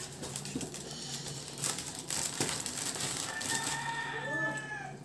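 Mealtime sounds at a table: a few light clicks and rustles of a spoon and dishes over a steady low hum. About three and a half seconds in, a faint, drawn-out wavering call rises and falls for about a second.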